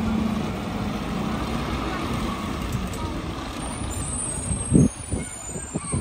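Mack Granite rear-loader garbage truck's diesel engine running steadily as the truck moves off, with a faint high air-brake squeal in the second half. A few short low thumps about five seconds in.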